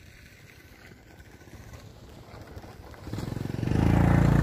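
A low background hush, then about three seconds in a motorbike engine comes in and quickly grows loud, running steadily.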